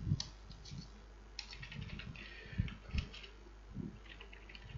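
Typing on a computer keyboard: irregular keystrokes with short pauses, some landing with a dull knock.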